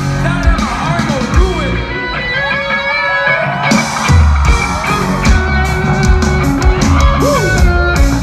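Live rock band playing loudly, heard from within the crowd: a guitar-led passage with notes gliding up and down, then drums and bass come in heavily about four seconds in.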